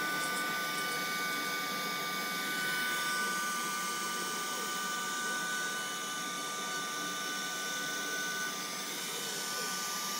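CNC wood router cutting MDF sheet: a steady high-pitched spindle whine over a rushing hiss of cutting and dust extraction. One of the whine's tones stops about eight seconds in.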